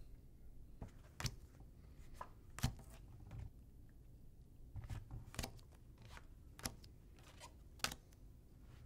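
Light, irregular clicks and taps of playing cards being handled and set down on a table, a dozen or so, the sharpest near the end as the cards are laid face-up.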